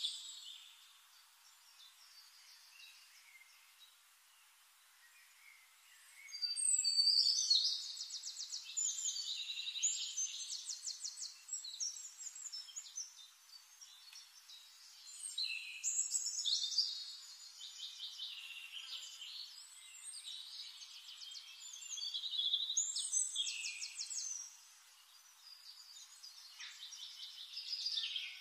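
Forest birdsong: high, fast trills and chirps come in bursts every several seconds, after a quieter first few seconds.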